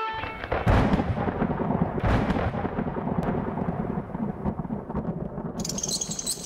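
Thunder sound effect: a loud crack about a second in and another about two seconds in, then a long rolling rumble. A high, crackly hiss joins near the end.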